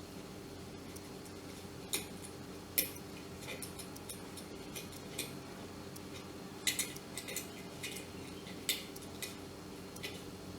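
Pliers clicking and clinking against a metal nut and small metal parts while a kettle thermostat's nut is fitted: a dozen or so irregular sharp clinks, with a cluster about two-thirds of the way in. A faint steady hum runs under them.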